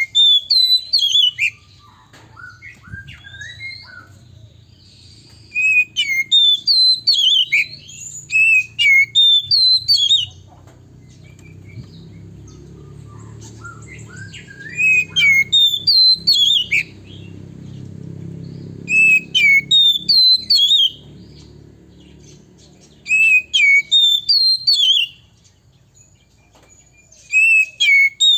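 Male oriental magpie-robin singing: loud bursts of rapid, whistled notes that swoop up and down, repeated six times with pauses of a few seconds between them.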